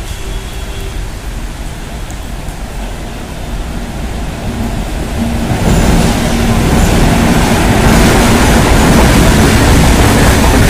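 Indian Railways WAG-7 electric locomotive approaching and passing close by, its noise growing steadily louder until it goes past about six seconds in, followed by the steady rolling noise of BCN/A covered freight wagons' wheels on the rails.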